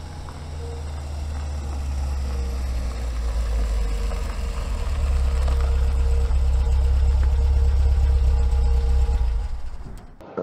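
A motor vehicle's engine running steadily with a low rumble. It grows louder over the first few seconds, then dies away near the end.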